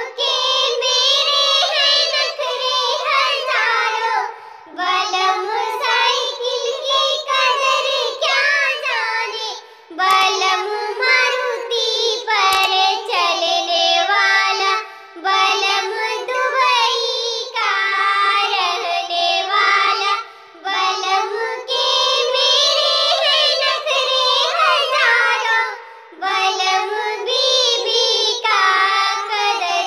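High-pitched cartoon-voice singing of a Hindi nakta jhumar folk song, in sung phrases broken by short pauses every few seconds.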